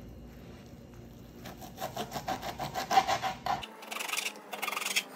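Kitchen knife chopping a bundle of grape leaves on a wooden cutting board. From about a second and a half in, the blade strikes the board in a quick run of strokes, about five a second.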